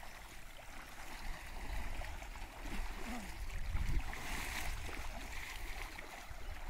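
Faint splashing and sloshing of shallow floodwater as people wade through a flooded paddy field, with a low rumble of wind on the microphone that swells about four seconds in, and faint distant voices near the middle.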